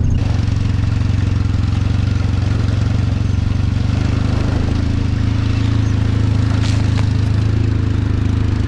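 Car engine running steadily under way, heard from inside the cabin.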